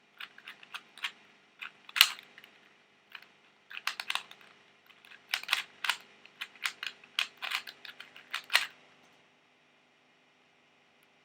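A 2x2x2 pocket cube turned rapidly by hand: a quick, irregular run of plastic clicks and clacks as the layers snap round, stopping about nine seconds in.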